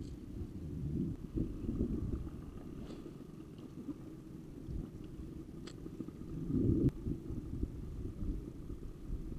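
Low, uneven rumble of wind buffeting the microphone, with a few faint sharp clicks about three and six seconds in.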